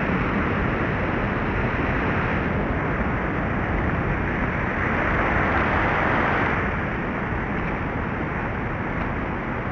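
Steady rushing of water pouring over a river weir, a continuous even roar.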